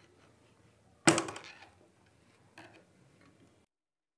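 A sharp metallic clack from a sewing machine about a second in, ringing out briefly, then a fainter click, as the fabric is set under the needle for a seam. The sound then cuts out abruptly.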